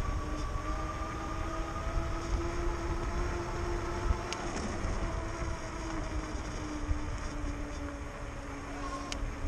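Electric bike motor whining steadily while riding, its pitch rising slightly over the first few seconds and then easing off, with wind rumbling on the microphone. A sharp click about four seconds in and another near the end.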